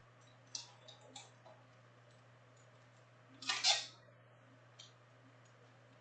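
Trading cards handled in clear plastic sleeves: a few light clicks and rustles, then one louder plastic swish about three and a half seconds in as a card is slid into a sleeve or top loader. A steady low hum runs underneath.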